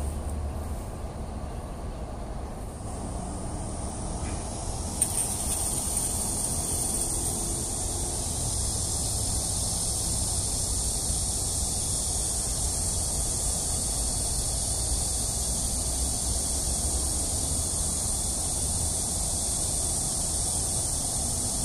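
Outdoor ambience: a high, steady insect drone comes in sharply about five seconds in and holds, over a low steady rumble. One short knock just before the drone starts.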